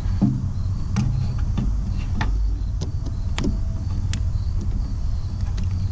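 Scattered small clicks and knocks of hands fitting rubber fuel hoses and a clamp onto a new plastic inline fuel filter, over a steady low rumble.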